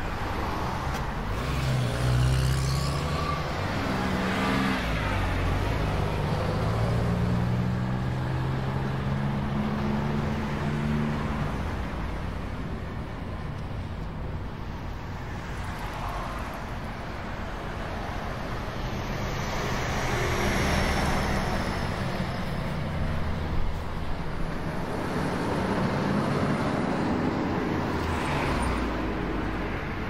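Vehicle engine and tyre-on-road noise heard from inside the cab on a highway. The engine rises in pitch in steps during the first ten seconds or so as it gains speed through the gears, then settles under steady road noise.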